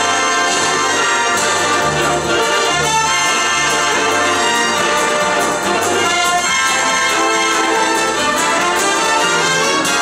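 Orchestral music with prominent brass, playing at a steady, full level.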